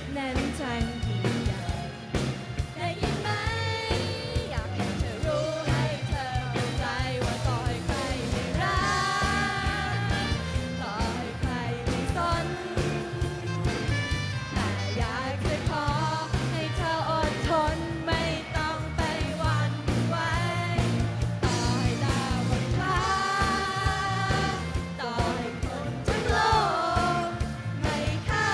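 Live band playing a pop-rock song: sung vocals over electric guitar, bass and drums with a steady beat.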